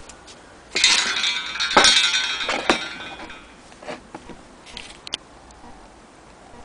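Metal clinking and ringing: a few sharp knocks with a ringing that fades over about two seconds, then a few light taps.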